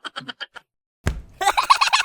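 A quick run of clicks, then a thump about a second in. After that a young monkey starts a rapid, high-pitched chattering call.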